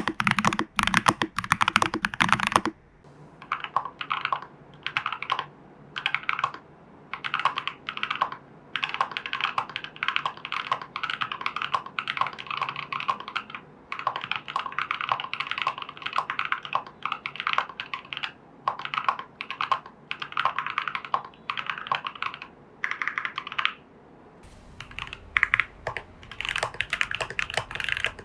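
Typing on a custom mechanical keyboard: a TU40 plastic-case kit with case foam, PCB foam and tape mod, fitted with lubed Fantasy Virus switches and XMI Cyrillic R keycaps. Fast runs of keystrokes with short pauses between them.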